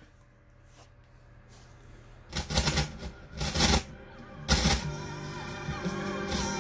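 Music played through a Grommes PG-10 mono tube amplifier as its volume knob is turned: nearly silent at first, then coming back in three short loud surges a little over two seconds in, before settling at a moderate level.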